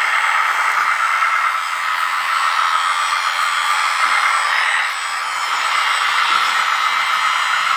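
Steady whir of the small electric drive motor and hydraulic pump of a 1/14-scale LESU RC hydraulic Linde forklift running as it drives with a loaded pallet on its forks, dipping slightly about five seconds in.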